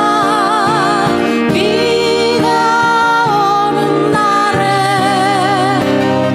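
Live acoustic pop ballad: a sustained melody with vibrato over guitar-backed accompaniment, with a low bass line coming in about four and a half seconds in.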